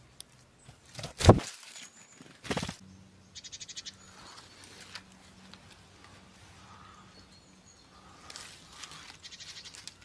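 Small woodland birds giving a few short, thin, high calls, with two sharp knocks early on (the first a little over a second in is the loudest) and a brief fast rattling run of pulses just after three seconds. Near the end, leaves and fabric rustle as a person moves on the forest floor.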